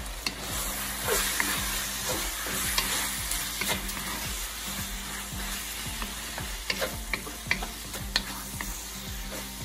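Chicken frying and sizzling in Panang curry sauce in a wok, stirred with a wooden spatula whose scrapes and sharp taps against the pan come through the steady sizzle.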